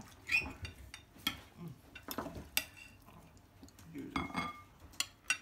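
Forks and knives clinking against dinner plates during a meal, several sharp separate clinks with a short ring.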